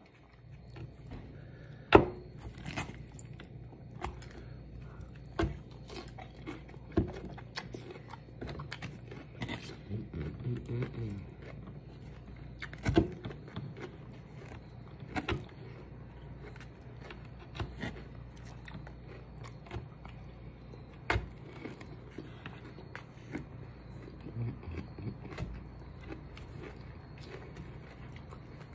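A person eating barbecued ribs and salad close to the microphone: chewing and biting, with scattered sharp clicks and scrapes of a fork on the plate, the loudest about two seconds in and again around thirteen seconds.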